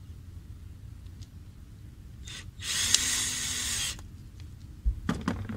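A woodworking tool working a small piece of wood: one loud, rough noise of about a second and a half about halfway in, followed by a few light knocks near the end.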